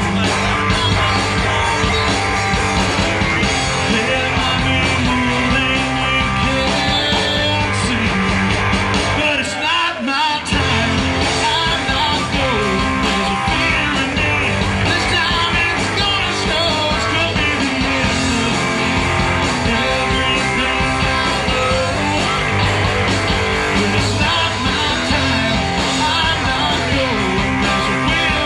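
Live rock band: electric guitars and drums, with a harmonica played into the vocal microphone over the band. The band stops for a moment about ten seconds in, then comes back in.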